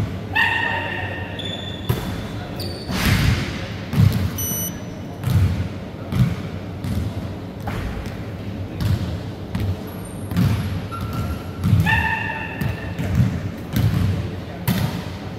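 A ball thumping and bouncing on a wooden sports-hall floor, irregularly about once a second, echoing in the large hall. A couple of short high squeaks sound near the start and again about twelve seconds in.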